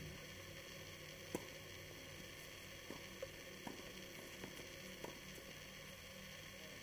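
Faint, distant doubles tennis play: a few soft knocks of the ball off rackets and the court, heard over the steady hiss and light hum of a camera's built-in microphone.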